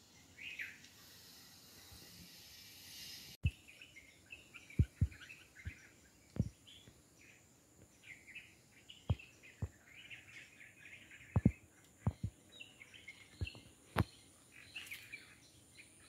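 Small birds chirping and twittering again and again, with about a dozen scattered short, dull thumps that are louder than the birds.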